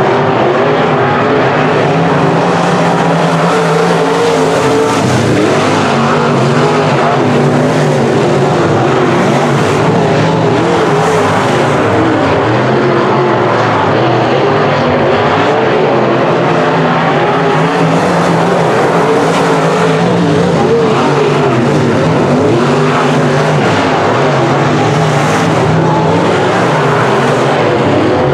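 Semi-late model dirt track race cars' V8 engines running hard and loud, the engine pitch rising and falling again and again as they lap the oval.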